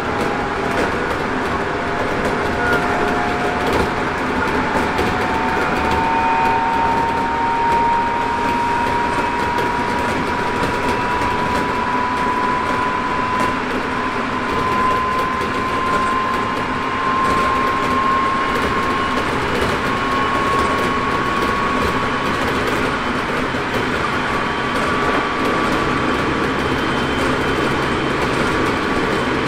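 Hokuso 7300-series electric train with Toyo GTO-VVVF traction drive, heard from inside the car while accelerating from about 60 to 100 km/h. Steady wheel and rail running noise, with a traction whine that climbs slowly in pitch as the train gathers speed.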